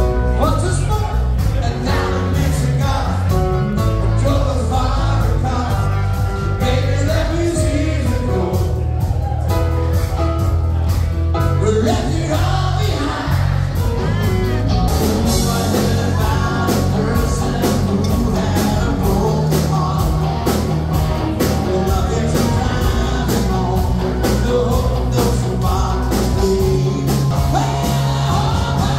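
Live band playing loudly, with a singer's voice over drums and electric guitar.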